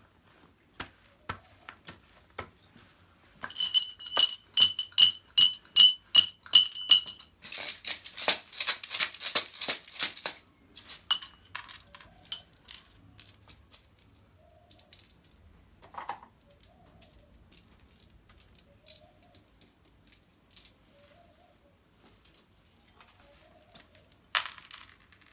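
A small metal ritual bell struck about ten times in quick rhythm, ringing with a few high clear tones, followed by a beaded gourd rattle shaken steadily for about three seconds. Scattered light clicks and taps of objects being handled follow, with another short shake of the rattle near the end.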